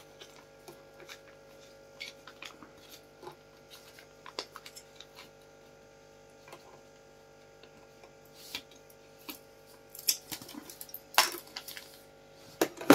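Light, scattered clicks and taps of wooden sticks and paper being handled and glued by hand, with a few louder sharp clicks near the end, over a faint steady hum.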